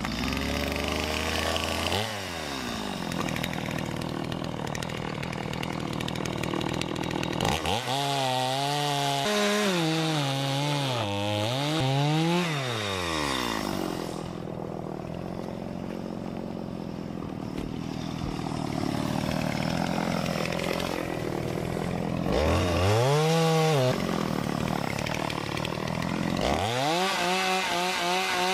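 Chainsaw cutting a fallen tree back from the trail edge: the engine runs low at first, then revs up and down repeatedly, with steadier stretches under load as the chain bites through the wood.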